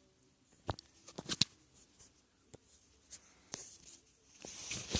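Close handling noise: a few sharp clicks and taps, then a brief rustle near the end.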